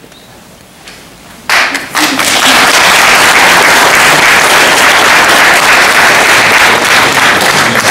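An audience clapping and applauding in a hall, breaking out suddenly about one and a half seconds in after a quiet moment and then going on loud and even.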